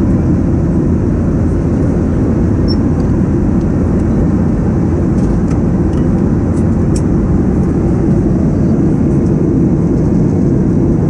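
Steady, loud roar of a Boeing 737-800 heard from inside the cabin: engine and airflow noise, deepest in the low range and unchanging throughout.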